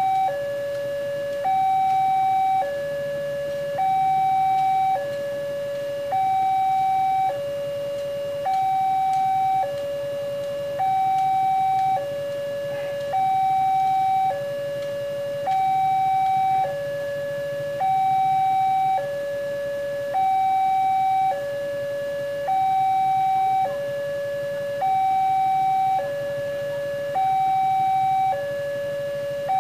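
Railway level-crossing warning alarm from the horn loudspeaker on the signal pole, sounding a steady two-tone hi-lo tone with each pitch held about a second. It warns that a train is approaching.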